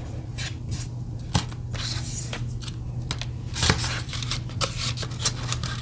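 Paper sticker flakes and small cardboard sticker boxes being handled: rustling with scattered light clicks and taps, two louder taps about a second and a half in and just before four seconds. A steady low hum runs underneath.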